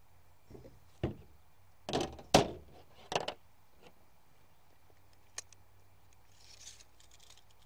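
Knocks and clatters of tools handled on a plastic folding table: an old steel framing square lifted off a wooden board and set aside, then a tape measure picked up. The loudest knock comes a little over two seconds in, with a sharp single click past five seconds.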